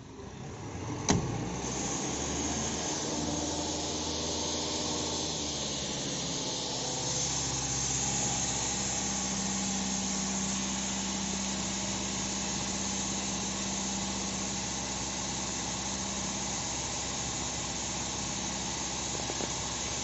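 Diesel engine of a Sany SCC1500 crawler crane starting with a sharp click about a second in, then running steadily at idle.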